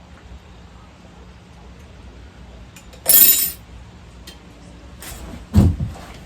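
Metal parts clinking together: one sharp, ringing clink about three seconds in, then a dull thump near the end.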